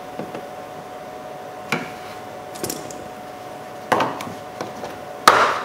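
A handful of sharp clunks and clicks from work on a car door, about a second apart, the loudest near the end with a short ring-out, over a faint steady hum.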